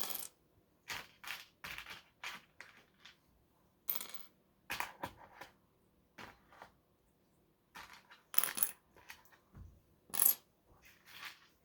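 Small plastic LEGO pieces clicking and clattering as they are handled and tossed about by hand, in irregular scattered clicks with a few louder clacks.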